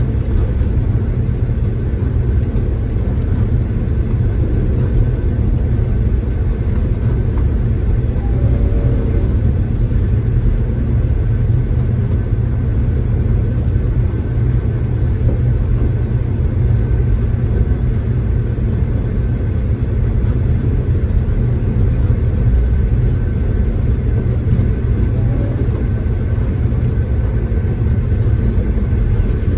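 Interior noise of a moving V/Line diesel passenger train, heard inside the carriage: a steady, loud, low rumble.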